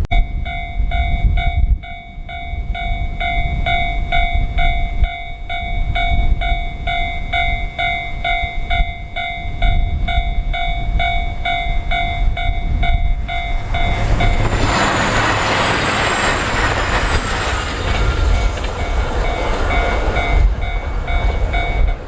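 Level-crossing warning bell ringing about twice a second, with strong wind buffeting the microphone. About two thirds of the way in, a diesel train passes over the crossing in a loud rush lasting a few seconds.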